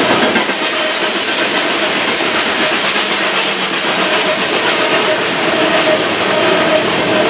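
Freight train of covered hopper cars rolling past, steel wheels running on the rails in a steady loud rush, with a faint tone that comes and goes.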